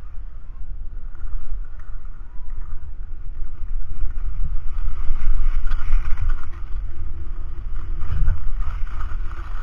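Wind buffeting the microphone of a camera carried by someone sliding downhill on snow, a steady low rumble mixed with the hiss and scrape of the run over the snow.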